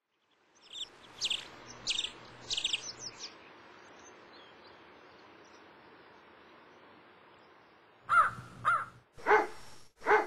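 Outdoor bird ambience: a small bird's high, quick chirps in the first few seconds over a faint steady background, then four loud, harsh crow caws near the end.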